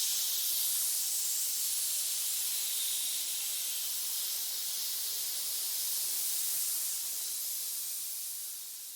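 Snake hissing: one long, steady, high-pitched hiss that fades away near the end.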